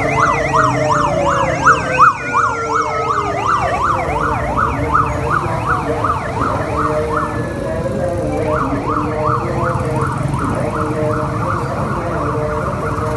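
Police siren in a fast yelp, its pitch sweeping up and down about three or four times a second and loudest about two seconds in, with a second tone sliding slowly downward over the first few seconds. The yelp breaks off briefly a little past halfway, then starts again, over the low running of passing motorcycle engines.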